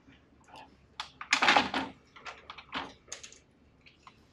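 Small plastic clicks and taps of LC APC fibre pigtail connectors being handled and pushed into the adapters of a plastic fibre tray, with one louder, longer scraping rustle about one and a half seconds in.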